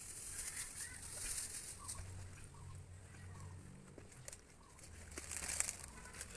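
Chickens clucking in the background, with the crackly rustle of dried banana leaves being handled, loudest about five and a half seconds in.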